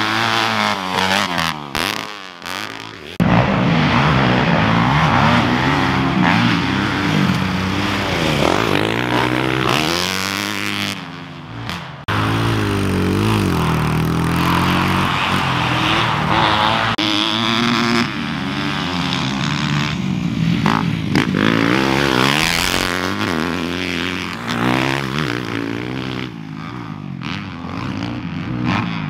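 Dirt bike engines revving on a motocross track, the pitch rising and falling again and again as riders open and close the throttle. The sound jumps abruptly a couple of times.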